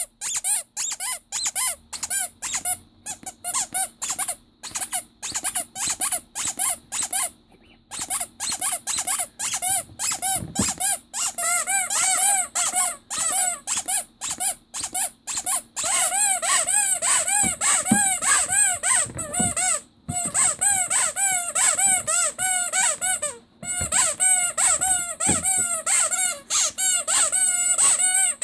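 Rubber squeaky toy squeezed over and over, giving short squeaks about three a second, each rising then falling in pitch.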